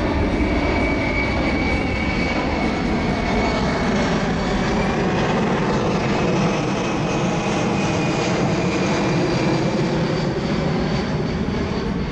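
Boeing C-17 Globemaster III's four Pratt & Whitney F117 turbofan engines running steadily on a low-speed pass, a broad rumble with a thin high whine over it.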